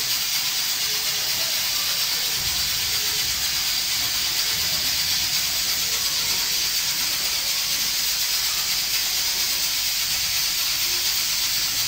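Pressure cooker on the stove venting steam with a steady hiss.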